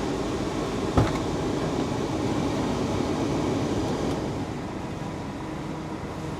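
Mitsubishi Pajero's AC blower fan running steadily with the engine idling while the system is being recharged with refrigerant. A single sharp click comes about a second in, and the fan noise drops to a lower, quieter step a little after four seconds in.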